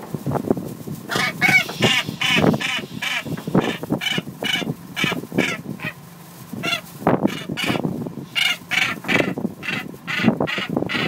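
Northern gannet calling while being handled: rough, grating calls repeated about three times a second in long runs, with short breaks between runs.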